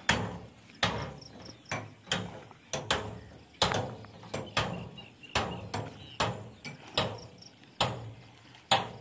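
Sharp knocks repeating at a steady pace of about one a second, each dying away quickly.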